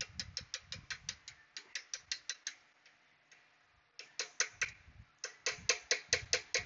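Hand ratchet wrench clicking as it is worked back and forth, a quick even run of about six clicks a second. The clicking pauses for about a second and a half midway, then starts again.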